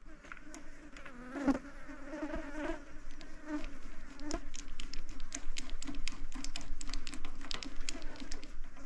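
A fly buzzing close by with a wavering pitch. From about three seconds in, a ratchet wrench clicks in quick, irregular runs as a spark plug is worked on a light aircraft engine.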